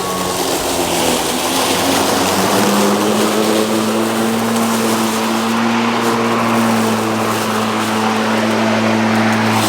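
Lawnmower engine running steadily while mowing grass, its pitch rising slightly about two and a half seconds in and then holding.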